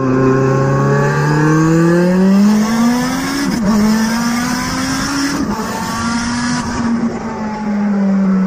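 SSC Tuatara's twin-turbo 5.9-litre V8 accelerating, heard from outside the car, its engine note climbing steadily. About three and a half seconds in the pitch briefly drops as the car shifts up a gear, then climbs again. Near the end it slowly falls away as the driver eases off.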